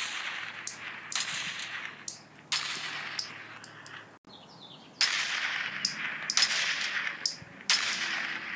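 Gunshot sound effects: a series of sharp shots, about one every second or so, each with a long noisy ring-out, broken by a short gap around the middle.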